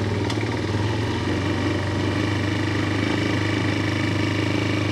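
Bashan Brozz 250 Recon dual-sport motorcycle's 250 cc engine running steadily as the bike pulls away from a stop and rolls along at low speed. One short click about a third of a second in.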